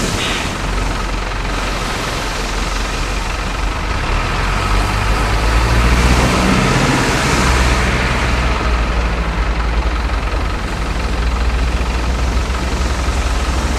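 Truck engine sound from a radio-controlled model truck running steadily, over a constant hiss. A low rumble grows louder from about five seconds in, as the truck wades through the mud.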